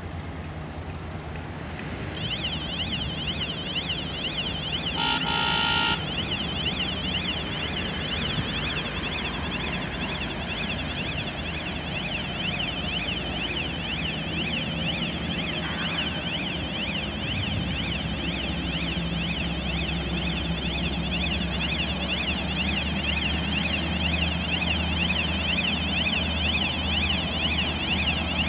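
Heavy diesel engine of a Cometto box-girder transporter running, with a fast warbling warning alarm that starts about two seconds in and keeps going. A single horn toot of about a second comes near five seconds in, and the engine grows louder in the second half.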